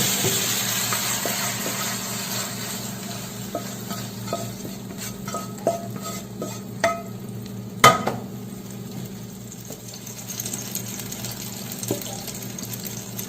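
Kitchen cooking sounds: a metal utensil clinking and tapping against a pot or pan in scattered short ringing strikes, with one sharper, louder knock about eight seconds in. A steady hiss, like running water, fades out over the first couple of seconds.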